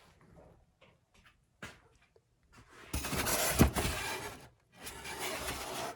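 Handling noise. A few faint clicks come first, then a stretch of rubbing and rustling about three seconds in that lasts a second and a half, and a shorter, softer stretch near the end.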